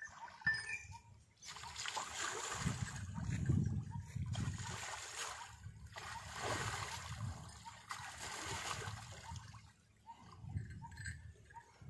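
Pond water splashing and sloshing as a bullock is washed by hand while standing in the water, coming in several surges and dropping away about ten seconds in.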